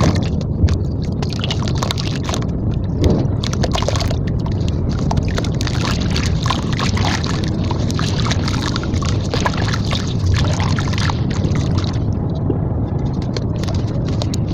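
Wet red sand-cement slab crumbled and squeezed by hand in a steel basin of water: sloshing and splashing with many small gritty crackles, over a steady low rumble.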